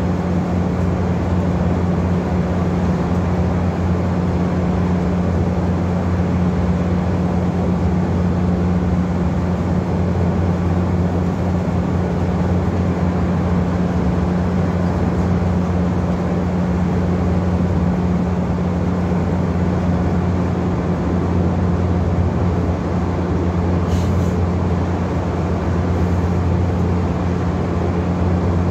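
Scania N230UD Enviro400 double-decker bus's five-cylinder 9-litre diesel engine running at a steady speed, a constant low drone heard from inside the upper deck. A single brief click sounds near the end.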